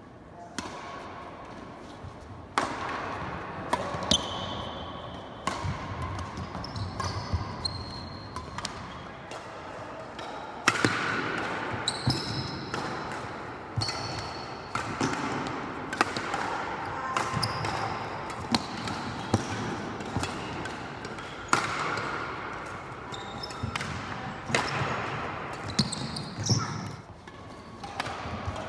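Badminton rally: sharp strikes of rackets on the shuttlecock at irregular intervals, with short high squeaks of shoes and footfalls on the court.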